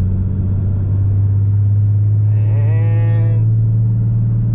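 Cummins 6.7-litre turbo-diesel exhaust droning inside the cab of a Ram 3500 under light acceleration: a steady low drone that grows slightly louder about a second in. The exhaust runs two mufflers in series, and the drone is unchanged by the second one.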